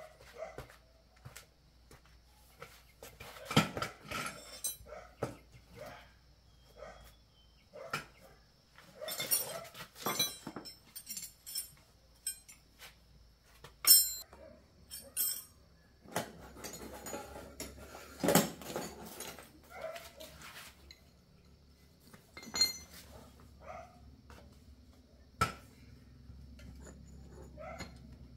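Metal bicycle parts and hand tools clinking and clanking at irregular intervals as a bicycle is taken apart, with a few sharper clanks among the lighter clicks.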